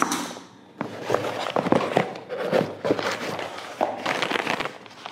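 Cardboard shipping box being opened and white paper wrapping crinkled and pulled apart by hand: a run of irregular rustles and crackles.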